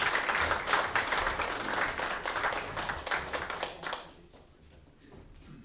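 Audience applauding, dense clapping that thins out and dies away about four seconds in.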